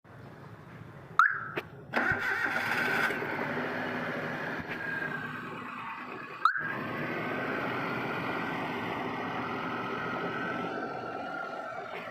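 Maruti Suzuki Alto 800's freshly overhauled three-cylinder petrol engine being started and then running steadily, with two sudden loud sounds about five seconds apart before it settles.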